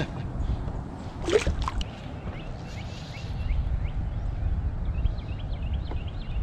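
Water sloshing and gurgling against a kayak's hull as it moves, over a steady low rumble. A series of short high chirps sounds through the second half.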